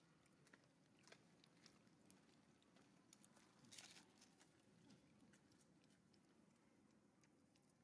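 Near silence, with faint scattered clicks and one short rustle about four seconds in.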